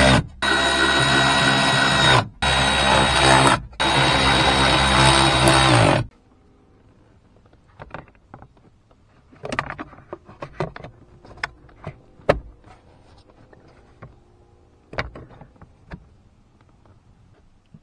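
A cordless electric ratchet runs in loud, steady spells, driving in the 8 mm bolts of a metal under-dash access panel, with brief stops about a third of a second in, at about two seconds and at about three and a half seconds. It stops for good about six seconds in. After that come scattered light clicks and knocks as the plastic lower dash trim panel is handled and clipped back into place.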